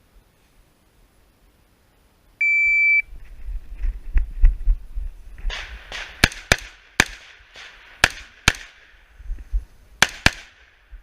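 Near silence, then a shot timer's start beep, a single steady tone lasting about half a second, followed by rustling and thumps of movement. About six seconds in, a Ruger AR-556 rifle in .223 fires a string of six shots about half a second apart, then two more in quick succession after a short pause.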